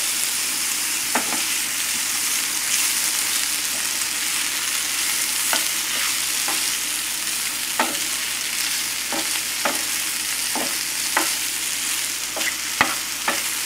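Chicken leg meat and mushrooms sautéing in butter in a skillet: a steady sizzle, with a scattering of short clicks.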